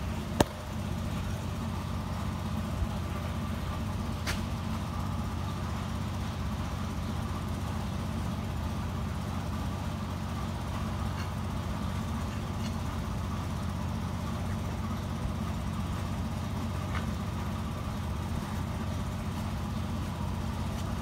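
Steady low mechanical hum, like a motor idling, with a sharp click just after the start and a fainter one about four seconds in.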